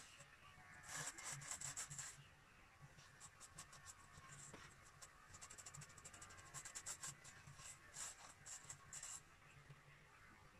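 Faint snipping and rustling of hair being cut by hand with scissors, in quick irregular runs of small sharp snips.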